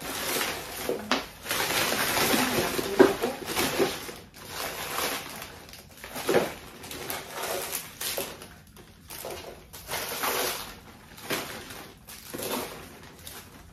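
Plastic rubbish bag rustling and crinkling in irregular bursts as rubbish is pushed into it by hand.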